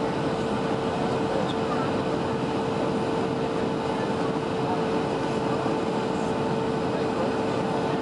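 Cabin noise of a Boeing 757-200 in flight on descent: a steady roar of airflow and Rolls-Royce RB211 turbofan engines, with a constant hum running through it.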